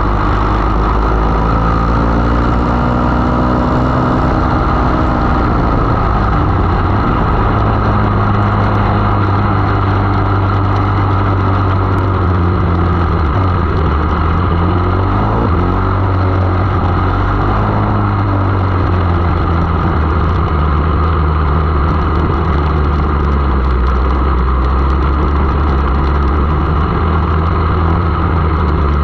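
A 500 mini sprint racing car's engine running hard, heard loud from onboard the car. Its pitch slides down and back up several times as the throttle comes off and goes back on through the corners.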